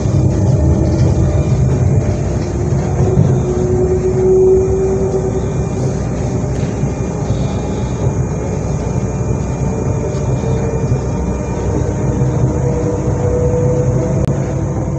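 SNCF Z 2N double-deck electric multiple unit (motor car Z 20831) standing with its onboard equipment running: a steady low hum with a whine that slowly rises in pitch.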